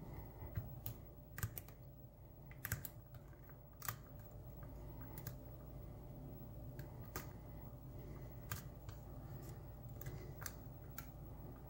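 Faint, irregular small metallic clicks and ticks of a hook pick working the pin stacks inside a brass challenge lock cylinder held under tension, as the picker probes for the stubborn sixth pin. A low steady hum runs underneath.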